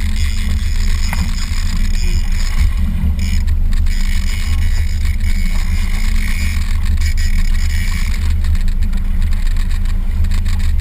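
Boat motor running steadily: a low, even drone.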